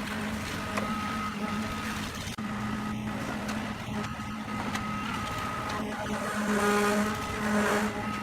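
An engine running steadily with an even hum, under a wash of machine noise.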